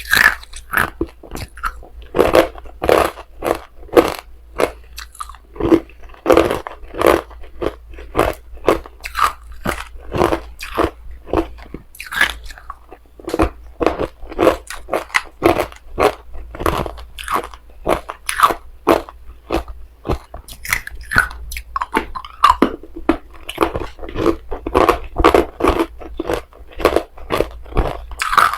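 Hard ice being bitten and chewed close to the microphone: a fast run of sharp crunches, several a second.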